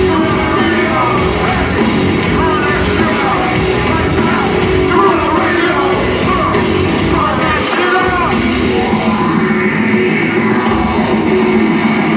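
A rap-rock band playing live at full volume, with distorted electric guitar, bass and drums under rapped, yelled vocals, as heard from the stands of an arena.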